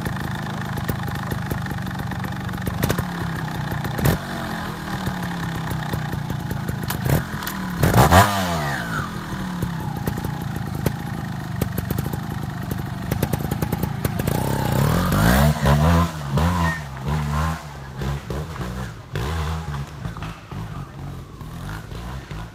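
TRS Raga Racing 300 two-stroke trial motorcycle idling steadily, with one sharp rev about eight seconds in and a run of quick throttle blips around fifteen to seventeen seconds in.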